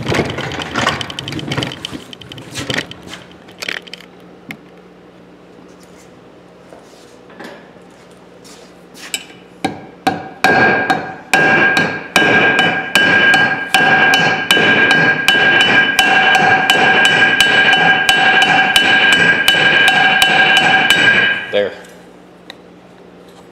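Ball-peen hammer striking the pivot of Channellock 420 slip joint pliers on a steel bench block: rapid ringing metal-on-metal taps, about three or four a second, peening the pivot over to tighten the joint. A few light metal clinks come first, then a quiet spell; the hammering starts about ten seconds in and stops suddenly near the end.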